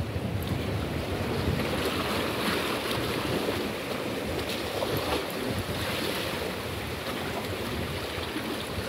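Wind buffeting the microphone over the wash of the sea against the jetty's rocks, a steady noise with a rough low rumble.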